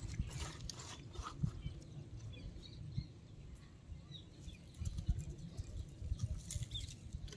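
Quiet outdoor background with a few faint bird chirps and scattered soft clicks. A light rustle of fried potato chips being tossed by hand comes at the start.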